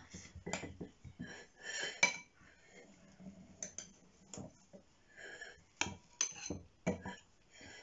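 Metal spoon scraping and clinking against a ceramic bowl as a soft microwave sponge pudding is cut in half and scooped out into another bowl, in scattered short clinks and scrapes, the sharpest about two seconds in.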